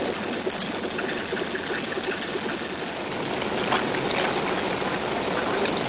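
A Grumman Goose's Pratt & Whitney R-985 radial engines idling steadily during an engine warm-up run.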